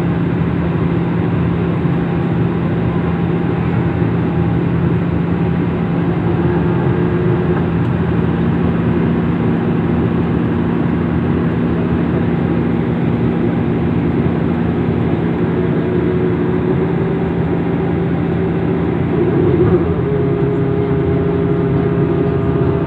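Steady vehicle drone: an even rush of noise over a constant low hum, with faint steady tones fading in and out.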